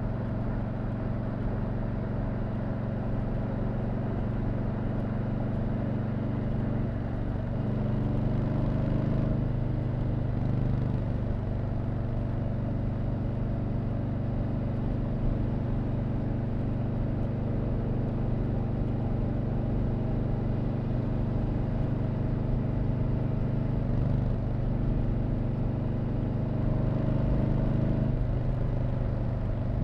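Stock exhaust of a 2020 Harley-Davidson Low Rider S with its Milwaukee-Eight 114 V-twin, running steadily while riding. The engine note shifts a few times between about 7 and 11 seconds in, and again near the end.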